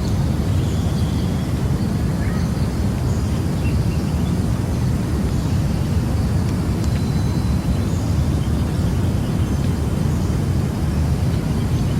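Jungle ambience: a steady low rush with faint, short bird chirps here and there.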